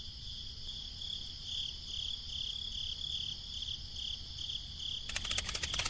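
Crickets chirping in a steady pulsing rhythm, about three chirps a second. About five seconds in, a fast rattle of clicks starts over them.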